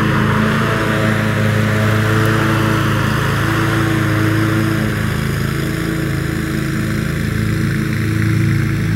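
Commercial lawn mower engine running steadily at working speed, its pitch shifting slightly about halfway through.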